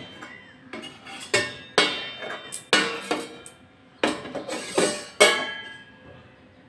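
Stainless-steel plate lid clanking against the metal kadai and the metal pot tongs gripping it as the lid is worked off: about eight sharp metallic clanks, each ringing briefly, with the loudest near the end.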